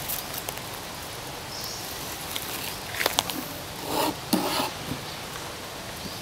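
Steady outdoor background hiss with a few light clicks and brief rustles as a steel wire saw is handled and fitted around a tree root, before the sawing begins.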